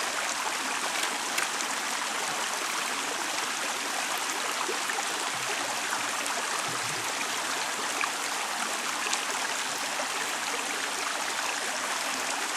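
Steady rushing of a shallow creek, with light splashing and a few small knocks as an aluminium sluice box is rinsed out into a plastic gold pan.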